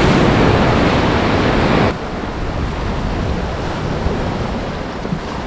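Sea surf breaking and washing over rocks, with wind buffeting the microphone. About two seconds in the sound drops abruptly to a quieter, steadier wash of waves.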